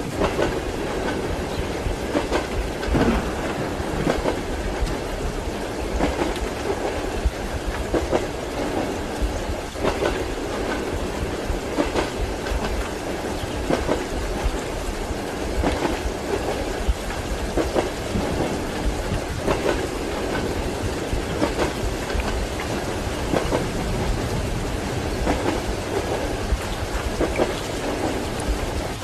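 Train wheels clacking over rail joints in a steady, repeated knocking, heard from inside a passenger compartment, mixed with steady rain and rumbling thunder.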